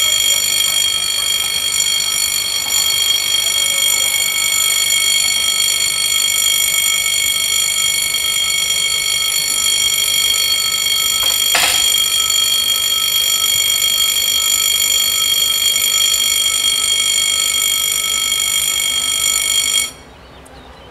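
Level crossing warning bells ringing steadily as the barriers lower to close the crossing, stopping abruptly just as the barriers come fully down. A brief knock sounds about halfway through.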